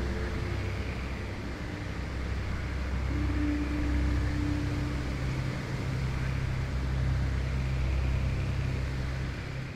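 A steady low rumble with a few faint held tones above it.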